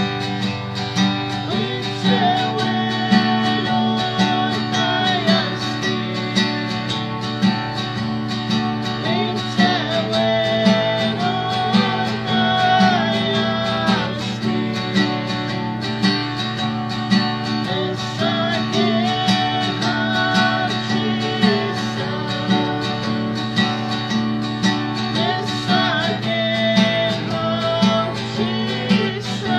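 Country-style music: an acoustic guitar strummed in a steady rhythm, with a singing voice over it.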